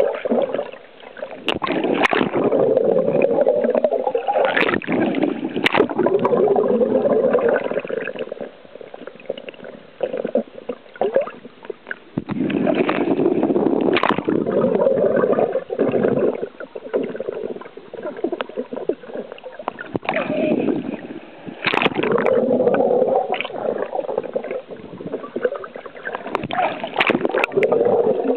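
Sea water heard through a camera held underwater: muffled rushing and gurgling, with bubbles from swimmers breathing out beside the lens. It comes in bouts of several seconds with quieter spells between, and occasional sharp clicks.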